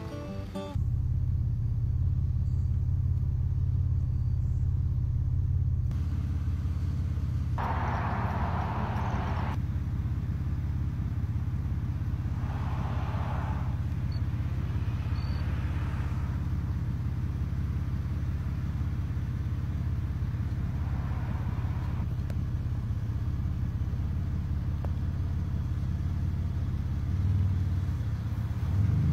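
Steady low rumble of a vehicle in motion, with a few short swells of hiss over it.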